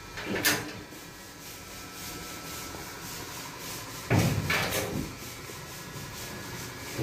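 Steel panel board door latch being worked by hand: a brief metallic scrape just after the start, then a louder rattle and clack of the sheet-metal door and latch about four seconds in.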